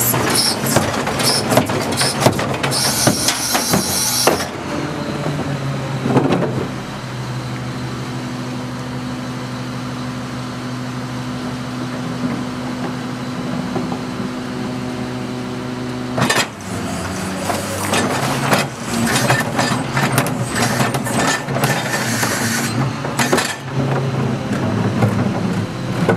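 Heil 5000 rear-loader garbage truck at work. For the first few seconds there is banging and clattering at the hopper. Then the truck's engine runs steadily as the packer cycles, and after a sharp knock about sixteen seconds in, the clatter and knocking start again.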